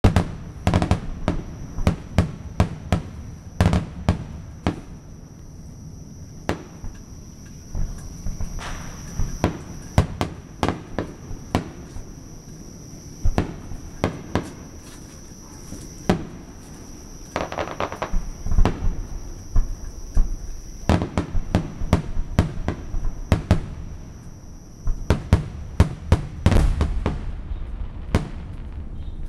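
Aerial fireworks shells bursting one after another in an irregular string of bangs, sometimes several a second, with short lulls between volleys.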